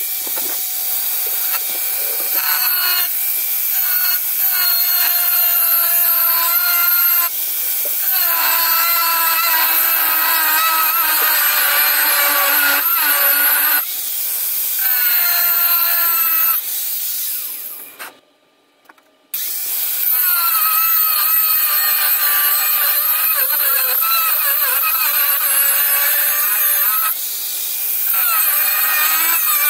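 Chicago Electric 4-inch angle grinder cutting into metal. Its whine rises and falls as the disc bites. A little past halfway it winds down and goes silent for about a second, then starts again.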